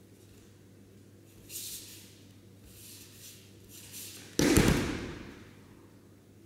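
A judoka thrown to the tatami landing in a breakfall: one loud slap-thud on the mat about four and a half seconds in, echoing through the sports hall. A few soft brushing sounds come before it.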